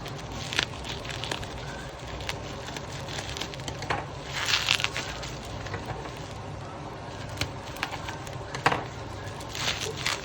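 Packaging being handled during an unboxing: crinkling and rustling with scattered clicks and taps. The longest rustle comes about halfway through, with sharper knocks near the end.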